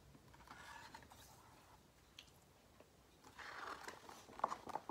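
Paper rustling and crinkling as a paper letter is folded back into its envelope in a book and a stiff page is lifted to turn. Faint at first, then louder crackling with sharp clicks from about three seconds in.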